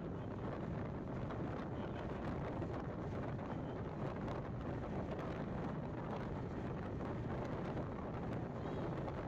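Steady low rumbling noise of travel, with wind buffeting the microphone.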